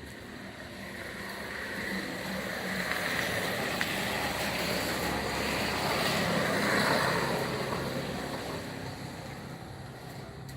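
A vehicle passing by, its tyre and engine noise building up slowly to a peak a few seconds in and then fading away.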